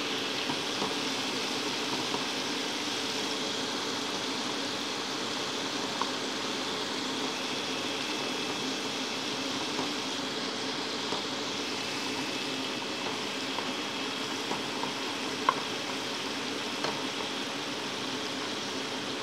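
Flour-coated chicken pieces deep-frying in hot oil: a steady sizzle and bubbling, with a few faint clicks.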